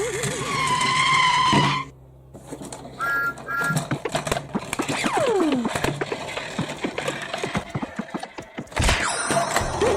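A run of cartoon-style sound effects: a wavering whistle-like tone that cuts off about two seconds in, two short high toots, then several falling whistle glides over clicks and clatter.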